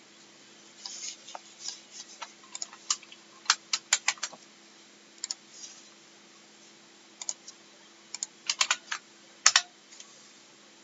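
Typing on a computer keyboard in irregular bursts of keystrokes, with a pause in the middle, over a faint steady electrical hum.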